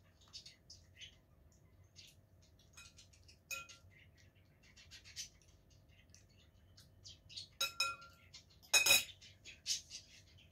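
Cutlery clinking and scraping against a ceramic bowl during eating. A ringing clink comes about a third of the way in and two more come past the middle, with a louder clatter near the end and small clicks and scrapes between.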